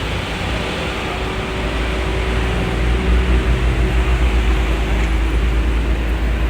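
Motor vehicle engine running, a low rumble that grows louder and starts to pulse about three seconds in.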